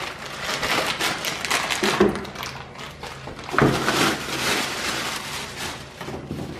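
Plastic packaging crinkling and a cardboard box being handled during unpacking, with dull knocks about two and three and a half seconds in.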